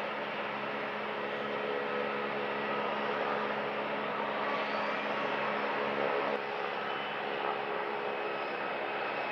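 Steady hum and rush of aircraft engines idling and taxiing on an airport apron, with a constant low drone under a broad whooshing noise. The level drops a little about six seconds in.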